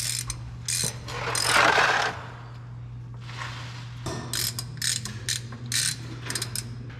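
Ratchet wrench being worked on metal fittings, clicking in several quick short runs in the second half. A louder scraping rush comes about one and a half seconds in, and a steady low hum runs underneath.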